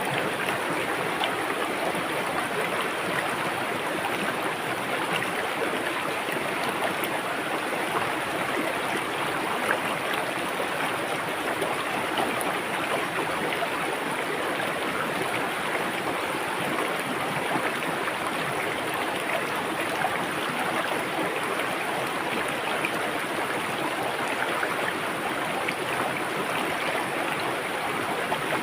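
River water running and babbling over rocks, a steady rushing with fine splashing detail.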